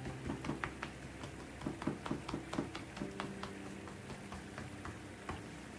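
Tuina beating technique: a loose fist striking the thigh through cloth sweatpants, a run of light thumps at about four a second, slightly uneven.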